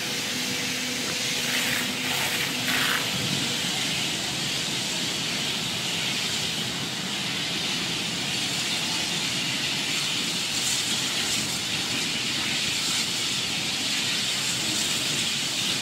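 Steady, even hiss of firefighting hose nozzles spraying water onto a vehicle fire fed by a burning gas jet.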